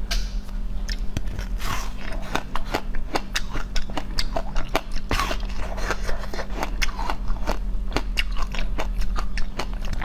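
Close-up biting and crunching of a frozen, seed-studded ice treat on a stick: many quick, irregular crunches and cracks one after another, over a steady low hum.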